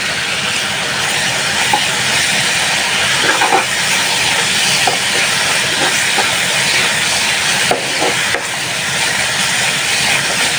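Spice masala (turmeric, chilli, coriander and cumin powder with garlic paste) frying in oil in a pan, a steady loud sizzle, with light scrapes from a spoon stirring it now and then. This is the stage where the masala is fried down before the tomatoes and fish go in.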